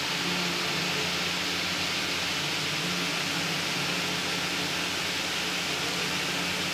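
Steady hiss with a faint low hum under it, unchanging and without any distinct events.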